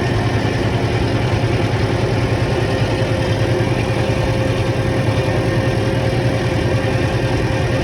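Heavy-machinery engine running steadily at an even speed, with a constant low hum and a few steady tones above it.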